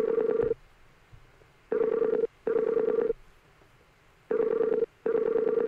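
Skype outgoing call ringing tone: a warbling ring sounding in pairs, the end of one pair and then two more double rings about two and a half seconds apart, while the call goes unanswered.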